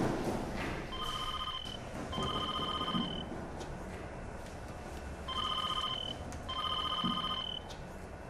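Cordless telephone ringing electronically, twice. Each ring is a pair of short, steady high beeps.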